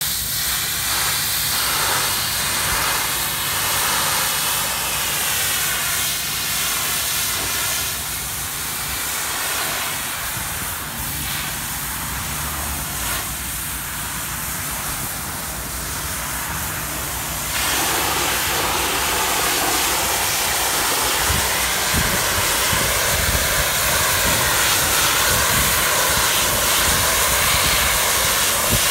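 Hotsy hot-water pressure washer jet blasting against brickwork: a steady loud hiss of spray over the low hum of the machine. The spray grows louder a little past halfway.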